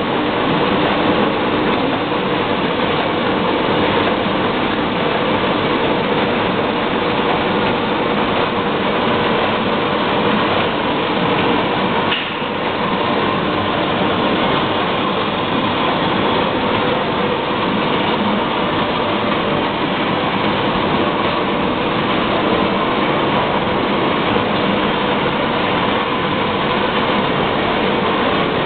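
Heidelberg Speedmaster 72 V four-colour sheetfed offset press running: a loud, steady mechanical noise with a faint, even hum, dipping briefly near the middle.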